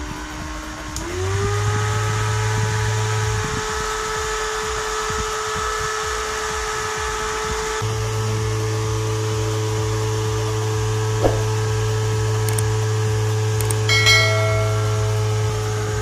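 Small DC-motor table fan running, its motor whine rising in pitch as the speed control is turned up about a second in, then holding steady. A low hum cuts in and out underneath. The whine winds down at the very end as the fan is slowed.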